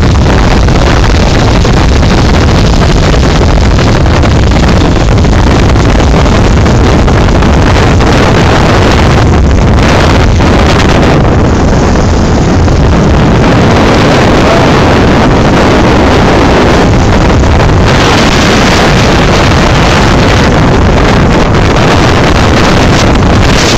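Wind buffeting the microphone on a moving motorcycle, loud and steady, with the motorcycle engine running under it.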